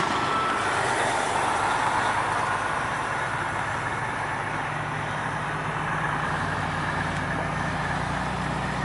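Semi truck diesel engines running at low speed: a noisier engine sound at first, then a steady low engine drone from about three seconds in.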